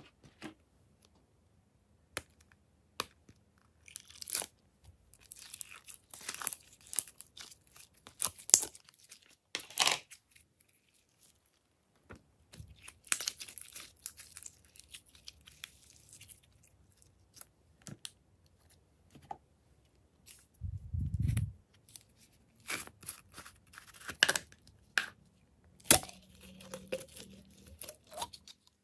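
Glitter-filled squishy stress balls being squeezed and pulled by hand, giving sticky crackling and tearing sounds in irregular bursts with quiet pauses between. A single dull thud comes about two-thirds of the way through.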